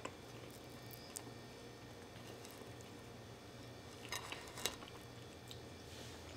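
A piece of garlic bread dabbed against a ceramic plate of ravioli: a few faint taps and scrapes about four seconds in, over a low steady hum.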